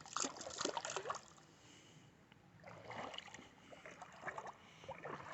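Footsteps wading in a shallow creek: irregular splashes and scuffs of stones underfoot, pausing briefly about two seconds in.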